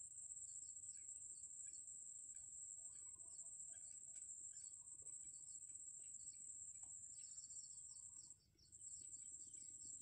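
Faint outdoor ambience: a steady, high-pitched insect trill with scattered short, faint chirps over it. The sound drops out briefly about eight seconds in.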